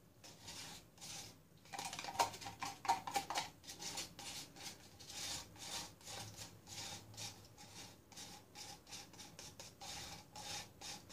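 Wooden craft stick scraping thick black acrylic pouring paint out of a cup, in quick, repeated rubbing strokes.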